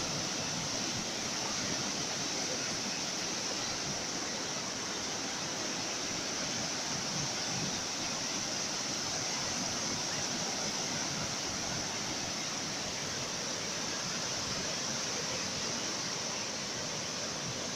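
Steady, unbroken rush of ocean surf, an even hiss with no separate wave crashes standing out.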